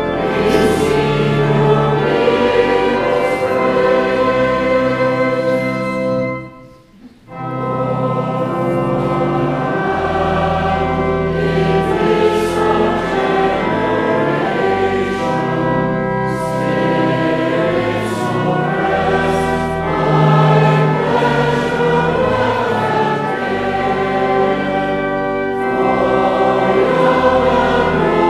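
A choir singing a hymn, with a short break between verses about six seconds in before the next verse begins.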